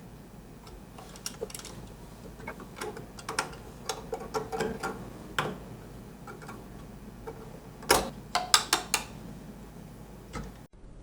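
Irregular clicks and taps of hard plastic and metal computer parts being handled and fitted together during a PC build, loudest in a quick cluster about eight seconds in, over a faint steady low hum.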